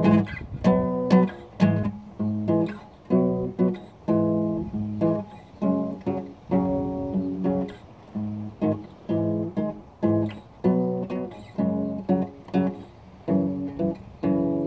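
Solo acoustic guitar, chords picked and strummed in a steady rhythm, a new chord struck about every half second to second.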